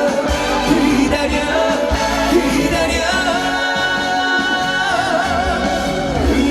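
Live trot song played loud through stage speakers: band accompaniment with a steady beat, and a long wavering melody note held through the middle.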